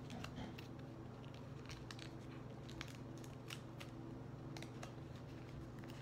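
Faint crinkling and small clicks of a paper cutout being handled and stuffed with cotton, scattered irregularly over a steady low hum.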